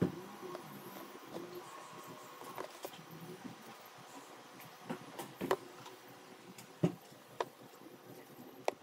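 Sneakers being handled on a tabletop under a stream of fine white powder: scattered light clicks and taps over a faint steady hiss.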